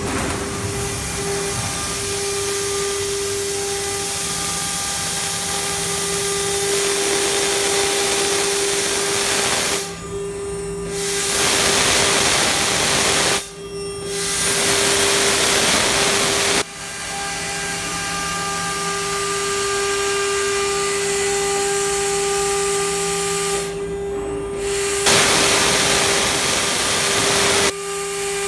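CNC router spindle on a rotary die-board cutting machine running with a steady high whine while its bit cuts into a curved plywood die board. The hissing cutting noise drops out briefly about four times, near 10, 13, 24 and 28 seconds, and comes back louder each time.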